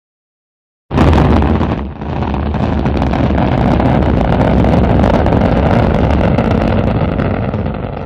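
Rocket engine firing, as a sound effect: it starts suddenly and loud about a second in, dips briefly, then runs on as a steady rumble that begins to fade near the end.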